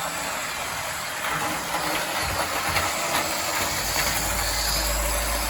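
OO-gauge model train running on its track, a Lima Class 40 towing an unpowered Class 45: a steady whirring hiss from the small motor and wheels, with faint clicks, and a low hum coming in about four seconds in.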